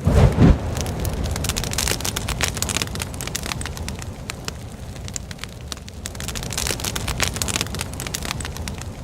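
Wood fire in a fireplace crackling, with many sharp pops over a steady hiss. A loud low thump comes right at the start.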